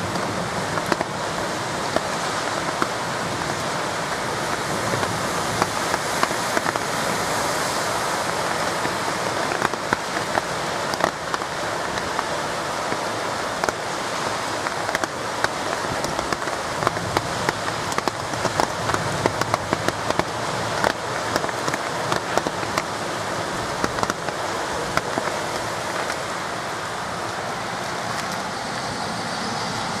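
Heavy rain falling steadily, with many sharp taps of drops striking close by.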